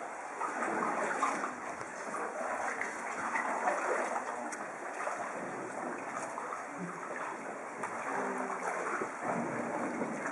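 Kayak paddles splashing and dripping in calm lagoon water, with voices of other kayakers now and then.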